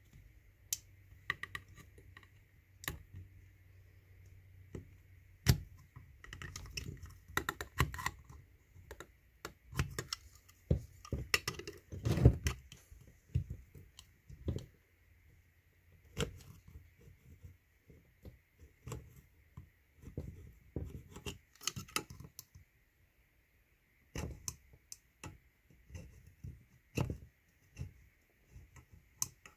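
Razor knife shaving the excess lead of a freshly installed plug flush on a Weber IDA carburetor's cast body: irregular short scrapes and clicks of blade on lead and metal, busiest in the middle.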